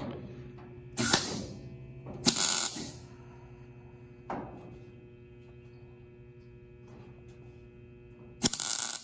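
MIG welder laying short tack welds on the hood seam: three brief bursts of arc crackle, about a second in, a second later and near the end, with a softer short burst midway. A steady electrical hum runs underneath.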